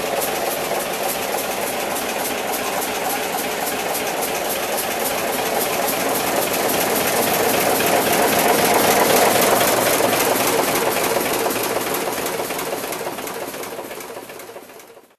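Superior push-rod diesel engine of a Westinghouse standby generator running, with a fast, even firing beat. It swells slightly midway, then fades away near the end.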